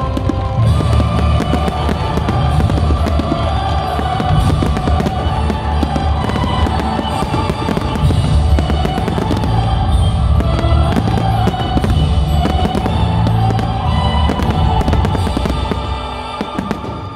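A fireworks display firing: many sharp bangs and pops in quick succession over loud show music. It eases off a little near the end.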